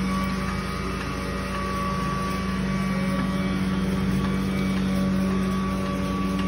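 A motor running at a steady, unchanging speed, giving an even low hum.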